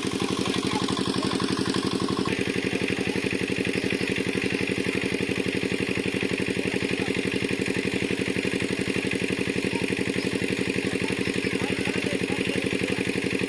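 Small engine running steadily at an even speed, with a fast regular firing rhythm; this is most likely the engine of the pump used to drain the pond.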